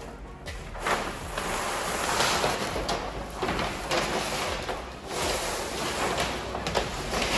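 Vinyl wrap film being squeegeed and pulled by hand onto a flat panel: repeated rustling, scraping swells of the film and squeegee rubbing.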